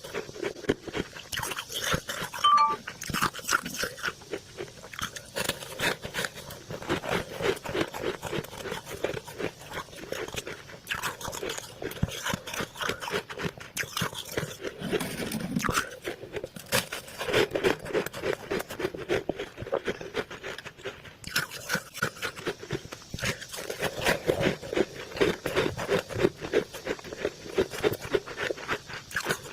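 A person chewing small bites of freezer frost: dense, rapid crunching of ice crystals between the teeth, going on without a break.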